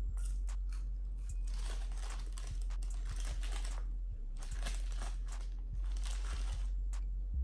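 Paper burger wrapper crinkling in several short bursts as it is unfolded from around a burger, over a steady low hum.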